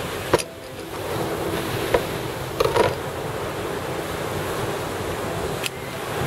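Steady ocean surf with wind on the microphone, broken by a few sharp clicks and knocks as a knife cuts a lime on a plastic cooler lid and a metal hand squeezer is worked.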